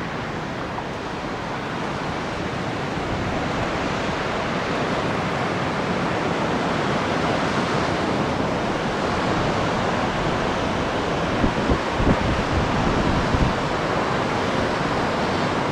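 Wind rushing over the microphone as a steady, loud roar, with a few low thumps of gusts buffeting the mic about three-quarters of the way through.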